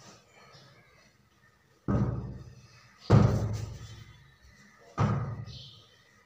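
Three heavy thuds, each trailing off over about a second.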